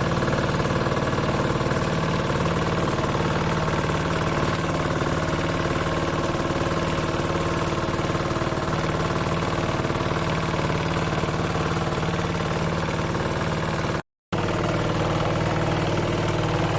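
Engine of a compact farm machine running steadily. The sound cuts out for a split second about fourteen seconds in, then runs on with a slightly different tone.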